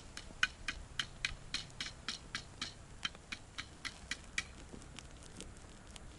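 Short ice-fishing rod being jigged in a mittened hand, ticking faintly about four times a second in step with the jigging strokes. The ticking stops about four and a half seconds in, leaving a few scattered fainter ticks.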